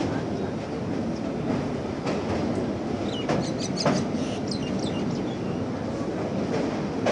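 Express passenger train running at speed over a river bridge, heard from inside a coach: a steady rumble of wheels on rails, broken by a few sharp wheel clacks. A cluster of brief high squeaks comes a little past the middle.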